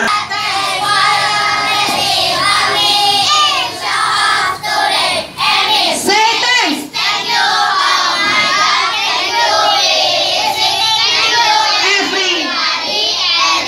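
A group of children singing together in chorus, many young voices at once.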